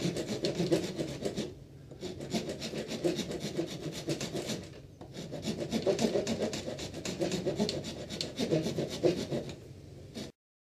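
A hand wood rasp scraping along the edges of carved ivy wood, taking off the sharp edges in fast, dense strokes. There are three runs of strokes with short pauses about 1.5 and 5 seconds in, and the sound cuts off suddenly just before the end. The footage is sped up, so the strokes come faster than by hand.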